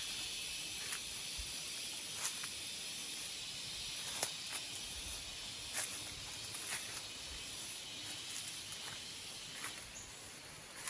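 Steady high-pitched drone of forest insects, with irregular crunches of footsteps on leaf litter every second or two.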